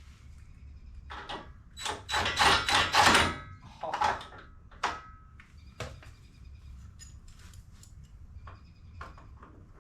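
Knocks and metallic clatter of car parts and tools being handled, loudest in a rattling burst about two to three seconds in, then scattered clicks. A bird chirps faintly in the background.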